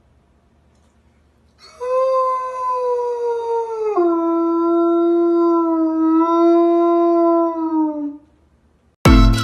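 A dog howling: one long howl of about six seconds that drops in pitch partway through and slides lower as it fades out. Music starts right at the end.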